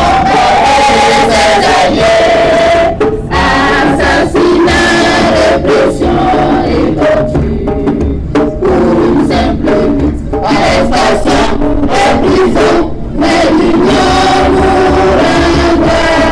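A student choir singing a tribute song in chorus, recorded live.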